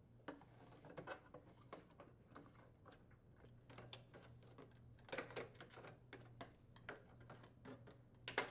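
Faint clicks and scraping as a putty knife pries the plastic inner trim off a microwave oven door, with a louder click near the end.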